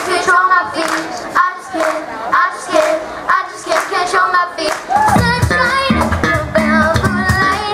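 A young singer's voice through a stage microphone, singing alone at first; a live band with guitar and bass comes in about five seconds in.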